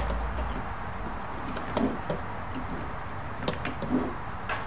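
A few light clicks and taps as the parts of a tripod head are handled and fitted together while a new tension spring is set in place.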